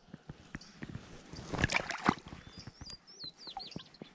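Small splashes and sloshing of shallow river water as a hand and landing net release a trout, the loudest splashing about two seconds in. A bird sings a short chirpy phrase about three seconds in.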